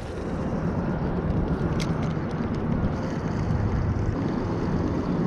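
Steady low rumble of distant motor traffic, with one faint click about two seconds in.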